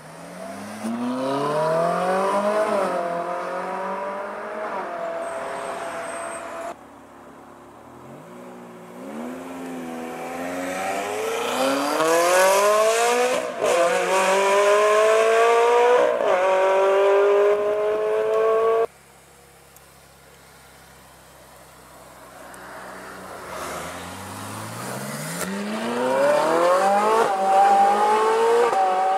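Ferrari sports cars, a 458 Italia with its V8 among them, accelerating hard in several short runs cut together. Each time the engine note climbs steeply, dips at a gearshift and climbs again, and twice the sound stops suddenly where one clip gives way to the next.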